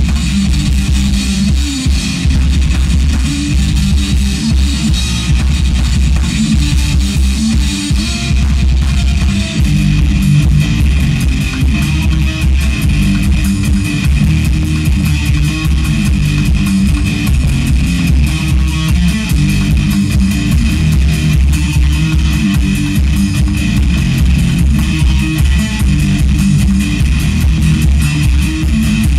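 Live rock band playing loud instrumental music: electric guitars over a drum kit, steady and without vocals.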